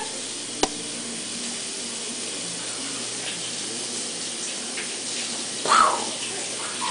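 Water running steadily from a tap, with one sharp click just over half a second in and a brief baby's vocal sound nearly six seconds in.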